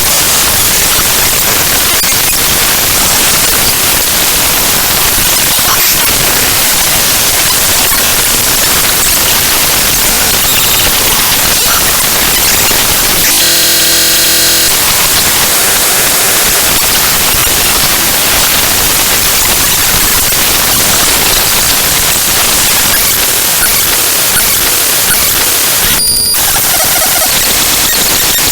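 Raw bytes of the ffmpeg.exe program file played back as audio: loud, harsh static. About halfway through it turns for a second or so into a buzzy tone, and near the end there is a brief high tone.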